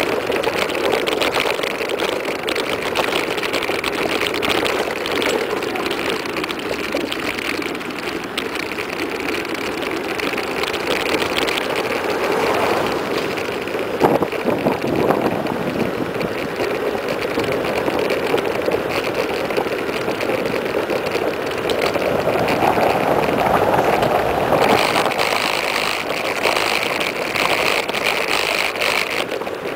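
Steady rush of wind and tyre noise from a mountain bike coasting fast downhill on asphalt, with a couple of sharp knocks from bumps about halfway through. Near the end the noise turns brighter and hissier as the tyres run onto ribbed concrete.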